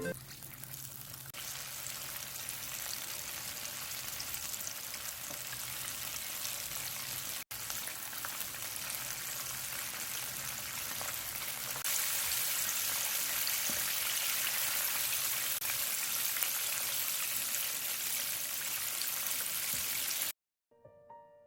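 Battered chicken frying in hot oil, a steady sizzle that stops suddenly near the end. It breaks off briefly partway through and comes back louder.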